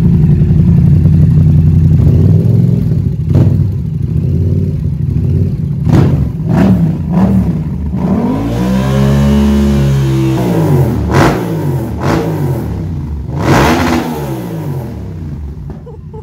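Yamaha MT-07's parallel-twin engine idling, then revved with a series of short throttle blips and one longer rev up and back down about halfway through, easing back toward idle near the end.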